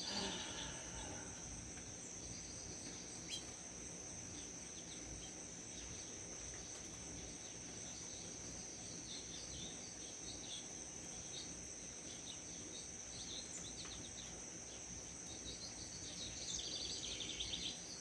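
Continuous high-pitched insect chorus, steady throughout, with birds chirping on and off over it and a run of rapid chirps near the end. One faint click a little over three seconds in.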